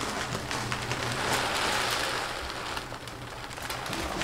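Uncooked rice grains pouring from a metal scoop into a plastic bag, making a dense pattering hiss of many small grain ticks that eases a little about three seconds in.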